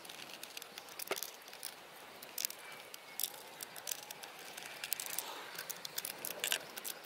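Scattered light clicks and taps as plywood hold-down clamps and M6 cap head bolts with washers are set on the CNC machine's bed and tightened with a hex key.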